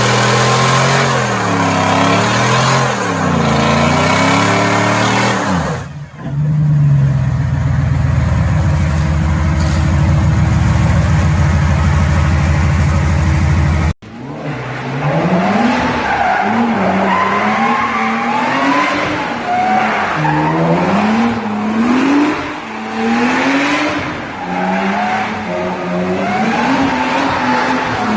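A car engine revving hard, its pitch climbing and falling over and over, with tyre squeal from drifting. Around the middle the engine holds a steady drone. It then cuts off abruptly to another run of repeated revs.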